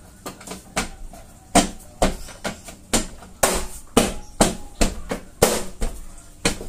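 Hand repeatedly slapping and pressing a Suzuki Ertiga's black tailgate trim panel to snap its clips into place: a quick series of sharp thumps, about two or three a second.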